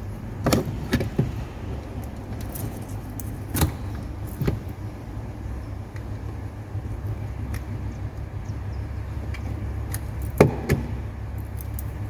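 Scattered sharp clicks and taps from a cutter and hands working on a coaxial cable while its insulation is stripped back to the inner core, over a steady low rumble. There is a quick cluster of clicks about half a second in, two single ones a few seconds later, and a louder pair near the end.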